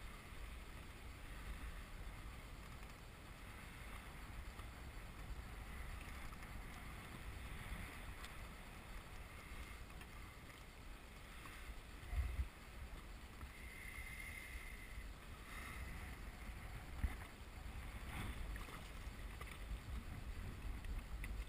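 Water lapping against the hull of a small inflatable boat, with a low wind rumble on the microphone. There is a single thump about twelve seconds in and a sharp click about five seconds later.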